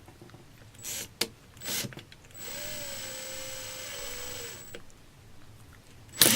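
Handheld electric drill run briefly for about two seconds with a steady motor whine, after a few short clicks of handling, with a sharp click near the end.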